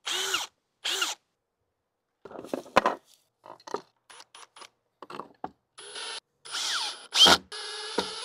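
Cordless drill run in short trigger bursts into a wooden fence board, its motor pitch rising and falling with each pull. Scattered clicks and knocks come in the middle, then several more drill runs near the end.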